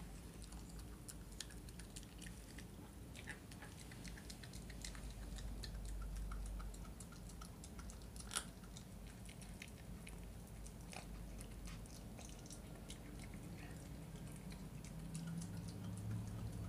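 Miniature schnauzer puppy chewing and gnawing a chicken drumstick: scattered clicks and crunches of teeth on meat and bone, with one sharper crack about eight seconds in, over a low steady hum.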